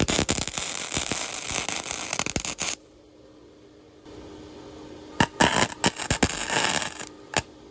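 Electric arc welding on steel: the arc crackles and sputters with sharp pops for a few seconds, stops, then strikes again for a second crackling run about five seconds in. The welding is done by an inexperienced welder trying for penetration on a bevelled joint.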